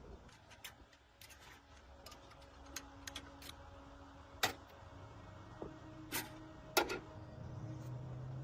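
A scattered series of sharp clicks and taps, the three loudest falling between about four and a half and seven seconds in.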